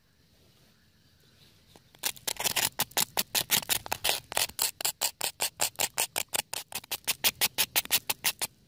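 A knife blade scraping rapidly back and forth across a charred, crusty burnt surface, about six quick scratchy strokes a second, starting about two seconds in and stopping just before the end.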